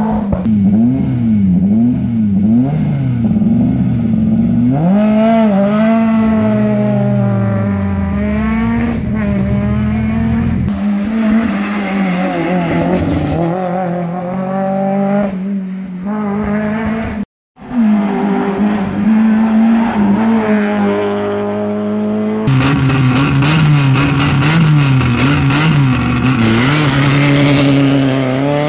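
Rally car engines at full throttle, the revs climbing and dropping again and again with gear changes and lifts for the corners. The sound breaks off for a moment partway through, then another car comes in, and near the end its revs climb steeply.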